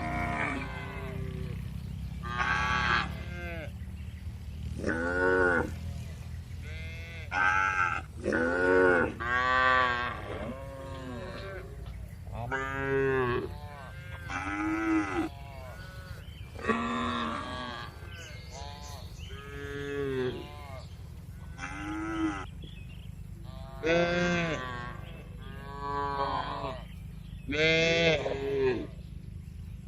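Cattle mooing in a barn: a string of short calls from several animals, one after another every second or two. Under them runs a steady low hum.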